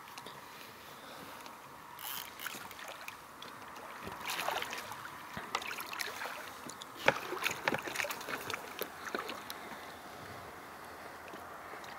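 Water splashing as a large wels catfish thrashes at the surface alongside an inflatable boat while it is being landed, with scattered short knocks; the splashing is loudest about midway.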